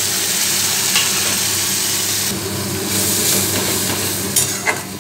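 Spice masala of onion, ginger-garlic paste and ground spices sizzling loudly in hot oil just after a splash of water, stirred with a metal spatula. The sizzle eases a little about two seconds in, and a couple of sharp spatula scrapes come near the end.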